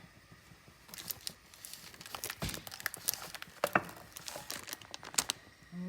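Crinkly packaging being handled: an irregular run of crinkles and small clicks that starts about a second in.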